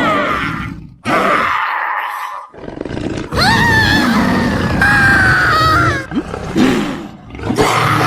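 Monster roars made as sound effects by layering big-cat roars with creature screeches. There are several separate calls with short gaps between them. The longest, starting about three seconds in, lasts nearly three seconds, with a shrill wavering cry on top of a deep growl.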